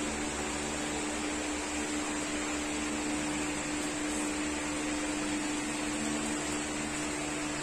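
Steady indoor machine hum with one constant low tone over an even hiss, the room tone of a shop.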